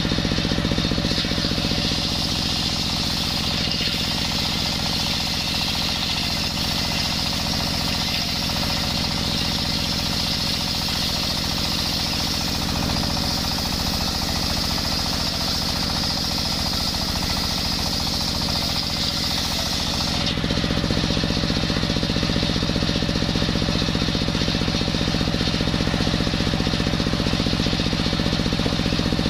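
Large circular saw blade ripping a coconut-wood log lengthwise, driven by a belt from a single-cylinder stationary diesel engine running steadily underneath. The high cutting noise eases about two-thirds of the way through, leaving the engine louder.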